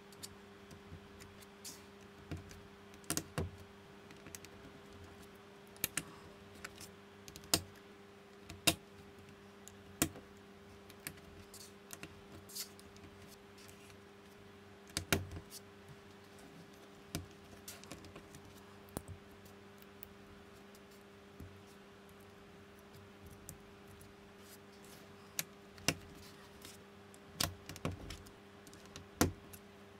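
LEGO-compatible plastic bricks being fitted and pressed onto a baseplate by hand: sharp plastic clicks and taps at irregular intervals, over a faint steady hum.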